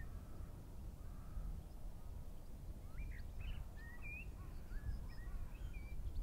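Birds calling outdoors: a few short, scattered chirps and calls about halfway through, over a steady low rumble.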